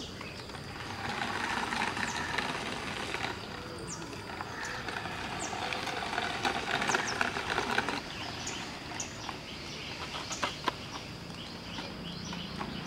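Small RC cardboard tractor driving over rough asphalt, its little electric motor and wheels giving a gritty rolling noise that comes in two stretches, from about one to three seconds in and again from about four and a half to eight seconds, with scattered small clicks.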